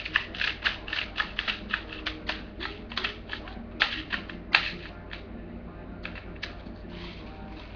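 Airsoft BB speed loader being worked by hand to push BBs into a magazine: a quick run of sharp clicks, about four a second, for roughly five seconds, then a few scattered clicks near the end.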